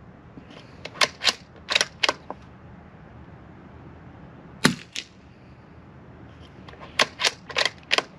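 Savage B22 F bolt-action .22 LR rifle fitted with a suppressor: a quick run of metallic clicks as the bolt is worked about a second in, a single suppressed shot a little past the middle, then the bolt worked again with four clicks near the end.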